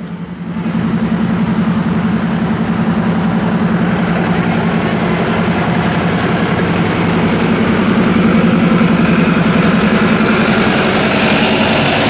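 Diesel railcar engine idling with the train at a standstill: a steady, loud, pulsing low hum that comes up about half a second in.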